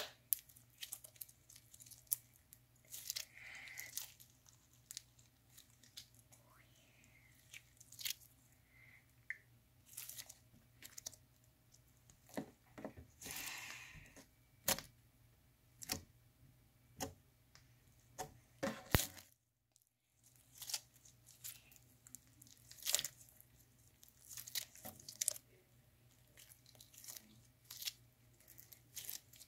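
Slime being squeezed and kneaded by hand: irregular soft squelches with scattered sharp little pops and crackles.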